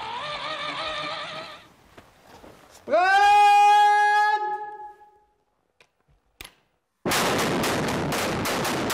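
A wavering call, then a man's long, loud shout, and about seven seconds in a gypsum-mine blast goes off: a sudden loud rush of noise broken by repeated cracks, about two or three a second.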